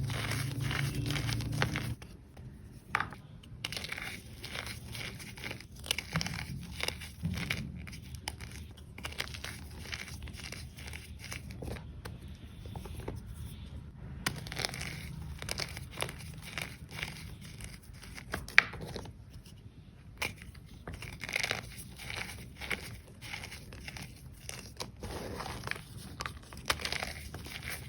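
Thin slabs of reformed gym chalk being crushed, a dense run of irregular crunching and crackling snaps, with one especially sharp snap about two-thirds of the way through.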